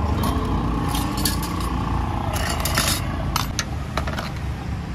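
Steady street traffic rumble, with a run of short, sharp clinks and scrapes through the middle seconds.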